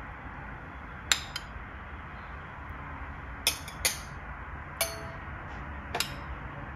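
A spoon tapping and clinking against a glass about half a dozen times, each a short ringing chink, as basil seeds are spooned into it.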